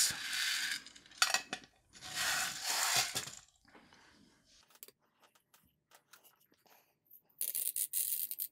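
Lead shotgun pellets rattling and rolling around in a shallow metal tin, in two spells. After a near-quiet stretch with a few faint clicks, the lead AAA shot is poured in a clattering rush into the cup of a small digital scale near the end.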